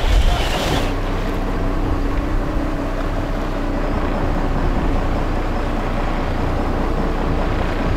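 Sportfishing boat's engine running steadily underway, a constant low hum under the rush of wind and water. A brighter hiss in the first second falls away.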